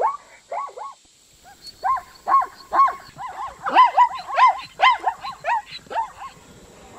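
Zebra calling: a series of short barking yips, each a quick rise and fall in pitch. The calls break off about a second in, then come back in a longer, quicker run that thins out near the end.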